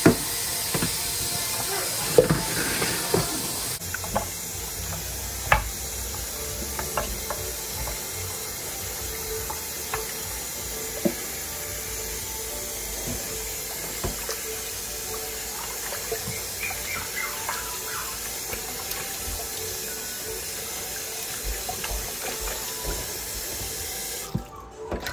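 Kitchen faucet running steadily into a stainless steel sink while raw pork ribs are rinsed and rubbed by hand in a glass dish, with occasional light knocks and splashes. The water is shut off near the end.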